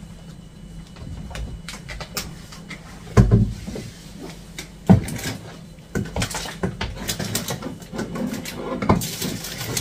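Scattered knocks and clicks of jars and bottles being set onto kitchen cupboard shelves. The loudest is a heavy thump about three seconds in, followed by a sharp click near five seconds and a run of lighter clicks after six seconds.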